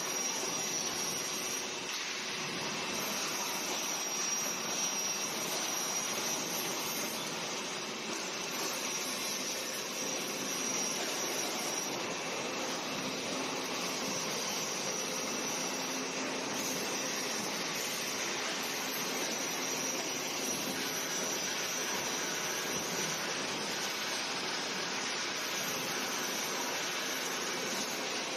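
Steady rushing noise of a fabrication workshop, like fans or machinery running, at an even level throughout.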